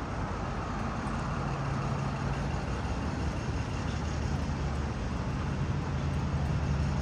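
City street traffic: a motor vehicle's engine running close by, a steady low hum over road noise that grows slowly louder.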